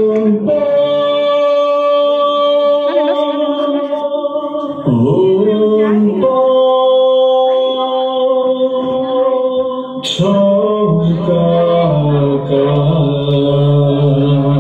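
Kachin dance song with singing in long held notes that change pitch every few seconds.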